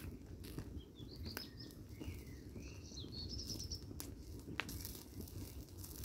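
Burning ballet flats crackling, with scattered sharp pops over a steady low rumble. Birds chirp in the background about one to three and a half seconds in.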